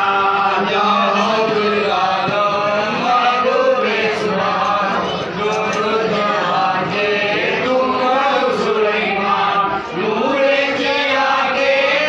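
A group of men chanting a Sufi rathib (dhikr) together in a rising and falling melody, with hand-struck frame drums (daf) beaten along.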